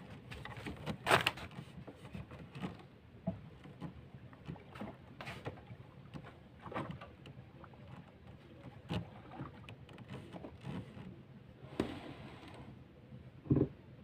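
Small boat on a river, with irregular knocks and water splashes every second or two, the loudest just over a second in and again near the end.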